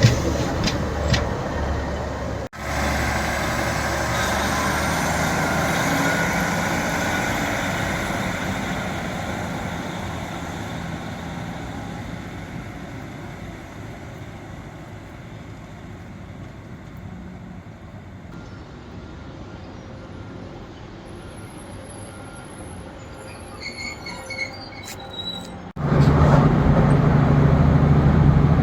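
Class 150 Sprinter diesel train noise over several cuts: loud running noise that fades away over several seconds, a quieter stretch of rail noise, then a loud, low, steady diesel engine drone that starts abruptly near the end.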